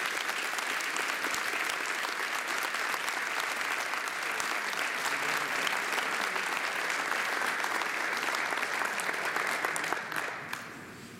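Audience applauding steadily for several seconds, then dying away near the end.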